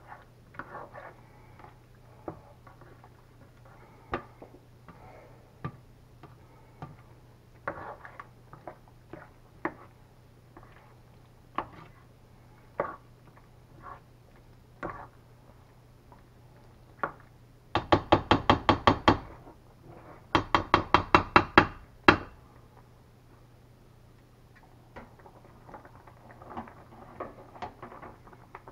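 A black plastic spoon stirring penne in thick Alfredo sauce in a stainless steel skillet, knocking against the pan now and then. About two-thirds of the way through come two quick runs of rapid clattering strikes, about ten a second, the loudest part.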